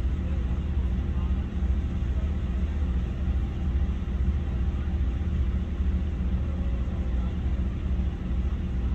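An engine idling steadily: a continuous low rumble with a steady hum that does not change.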